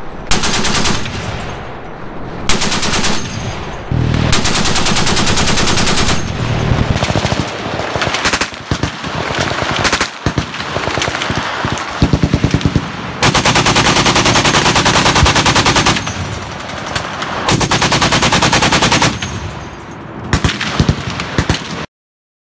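Browning M2 .50-calibre heavy machine gun firing several bursts of full-auto fire, some short and some running two to three seconds, with evenly spaced shots.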